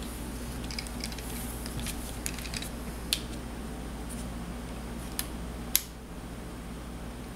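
Light clicks and taps from handling small radio-control car parts and a hand tool, with two sharper clicks about three and nearly six seconds in, over a steady low hum.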